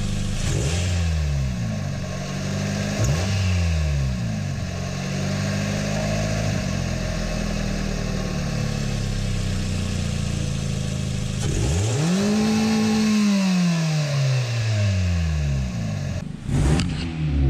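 A 2.0-litre DOHC 16-valve four-cylinder car engine idling on ordinary motor oil, heard from inside the engine bay with the hood shut. It is blipped twice in the first few seconds, then about twelve seconds in it is given one longer rev that rises and falls back to idle. A brief clatter comes near the end.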